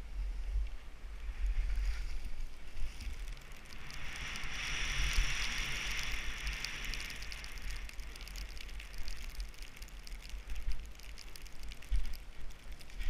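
Skis sliding through fresh powder snow, a steady hiss that swells for a few seconds in the middle, over a constant low rumble of wind on the camera microphone.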